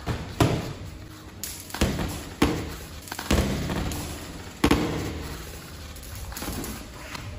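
Boxing-glove punches landing during sparring: about five sharp thuds, irregularly spaced, as gloves strike gloves, arms and bodies, the loudest near the start and about three-quarters of the way through.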